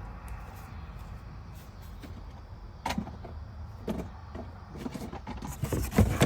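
Handling noises as parts are picked up and moved about: a sharp click about three seconds in, a knock a second later, then a burst of clunks and rustling near the end, over a steady low rumble.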